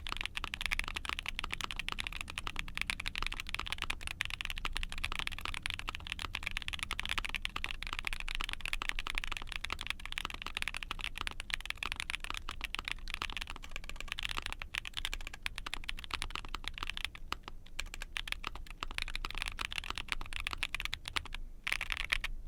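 Fast, continuous typing on a mechanical keyboard: an ai03 Vega with a POM plate and GMK keycaps, fitted with lubed White Jade tactile switches, giving a dense stream of keystroke clacks.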